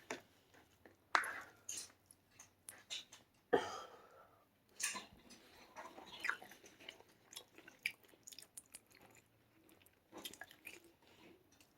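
A person chewing a mouthful of pigtail rice close to the microphone, with irregular wet smacks and clicks.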